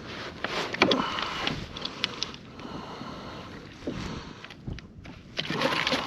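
Irregular splashing and knocking from a hooked redfish thrashing at the surface as it is brought in and handled, with sharp clicks scattered through it.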